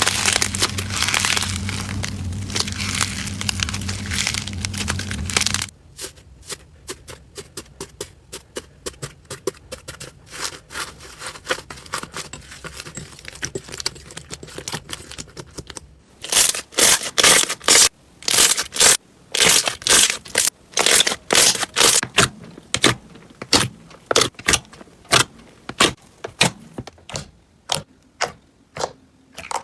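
Crunchy slime being pressed and worked by hand, giving a long run of sharp crackling pops and clicks, louder and closer together from about halfway. For the first five or six seconds the crackling is a dense, continuous scraping noise with a low hum under it, which stops abruptly.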